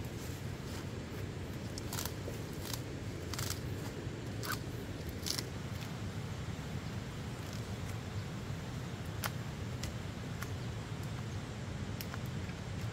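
Scattered sharp clicks and taps, most of them between about two and five and a half seconds in, over a steady low background noise.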